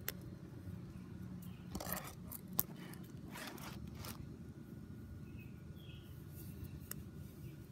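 A few short rustles and sharp clicks over a steady low background hum outdoors, the loudest click about two and a half seconds in, then faint short bird chirps near the end.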